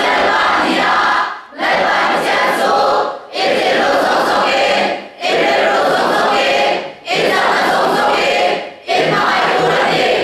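A large group of high-school students singing together in unison, as a choir, in phrases of about two seconds with brief breaks between them.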